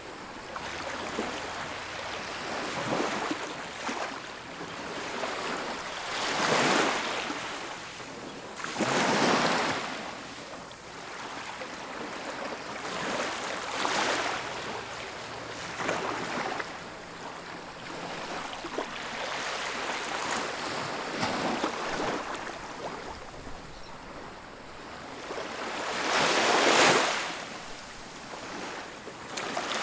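Ocean surf washing onto a beach: waves breaking one after another every few seconds, each a rising and falling rush, the biggest one near the end.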